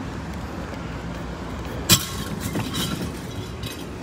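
Junk being thrown down onto the concrete dump floor: a sharp bang about two seconds in, then a few smaller knocks and clatter, over a steady low rumble.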